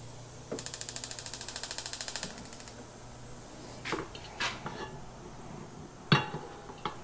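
Gas stove's electric igniter clicking rapidly, about ten clicks a second for roughly two seconds, as the burner is lit to heat the pan. A few metal knocks and clinks of cookware follow, the loudest near the end with a short ring.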